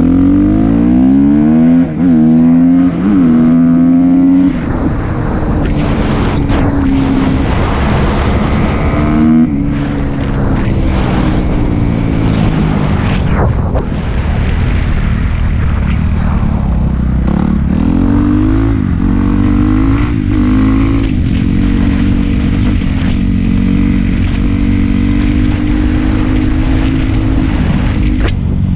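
Dirt bike engine accelerating through the gears, its pitch climbing and dropping at each upshift. This happens in the first few seconds and again about two-thirds of the way through, with steady cruising and wind noise in between.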